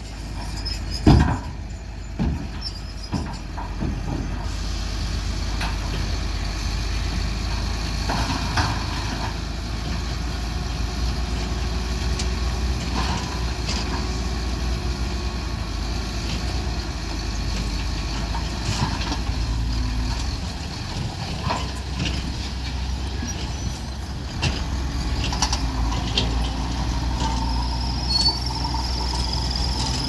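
Dump truck's diesel engine running steadily while its hydraulic hoist tips the loaded bed, with rock and earth knocking and clattering out onto the pile. A few loud knocks in the first couple of seconds, the loudest about a second in.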